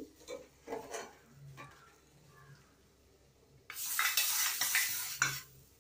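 A metal tempering ladle and a steel pot clink lightly a few times while hot mustard-seed tempering is tipped into sambar. About four seconds in there is a louder stretch of metal scraping and clattering at the pot, lasting over a second.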